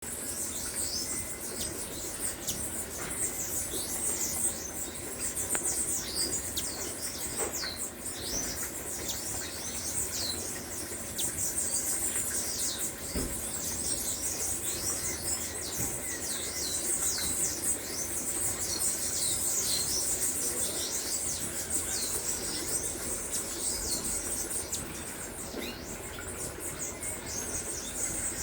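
A dense chorus of many small birds chirping at once, a steady stream of short, high, downward-sweeping chirps overlapping throughout.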